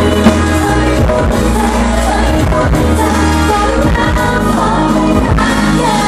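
Loud pop song played over a stage sound system, with women singing over a steady drum beat and heavy bass.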